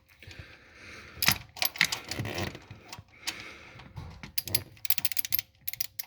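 Metal clicking and rattling of a Stanley ratchet wrench being worked onto a bolt head, with a quick run of clicks in the second half.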